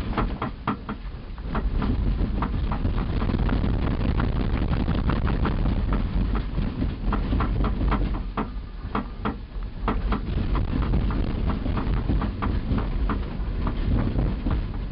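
A vehicle running over rough, jarring ground: a steady low rumble with frequent sharp knocks and rattles, easing briefly about two-thirds of the way through.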